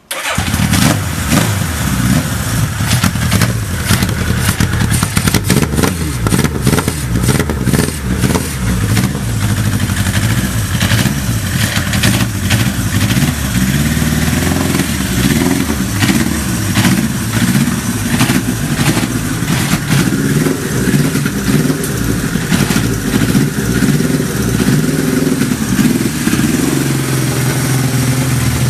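1992 Suzuki GSX1100S Katana's inline-four engine firing up suddenly through a Kerker aftermarket exhaust, then running loudly with the throttle blipped so the revs rise and fall repeatedly before it settles.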